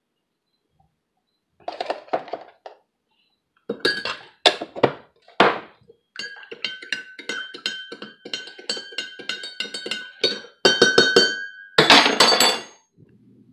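A metal spoon clinking against a ceramic coffee mug. First come a few sharp taps, then several seconds of quick clinking as the coffee is stirred, each strike leaving a ringing tone. A short, louder rustling noise comes near the end.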